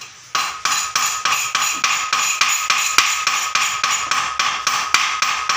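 Hammer tapping rapidly and evenly on a heated aluminium extrusion rail, about four to five blows a second, each with a short metallic ring: knocking a bend out of the aluminium. The tapping starts just after the beginning.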